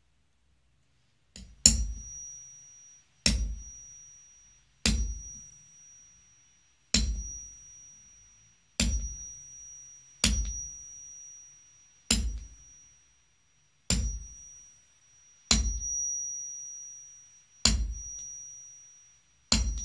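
A hammer striking a small metal hole punch through leather onto a wooden board, punching stitching holes: eleven sharp blows about every one and a half to two seconds, each with a dull thud and a high ringing tone that lingers between blows.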